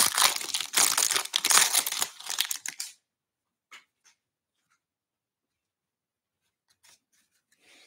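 Foil wrapper of a 2022 Bowman Draft baseball card pack being torn open and crinkled for about three seconds, followed by a single soft tap.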